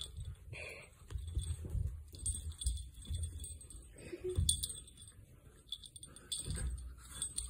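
Two small dogs play-fighting on a bed: irregular scuffling and rustling of the bedding, with a small collar bell and harness fittings jingling now and then.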